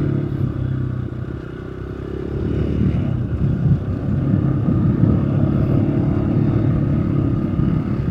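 Onboard engine and road noise of a vehicle travelling steadily. The engine drops off about a second in, then picks up again from about two and a half seconds.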